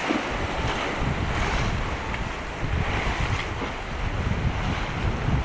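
Strong gusty wind buffeting the microphone in uneven low rumbles over a steady rushing hiss of wind and water, with a sharper gust near the end.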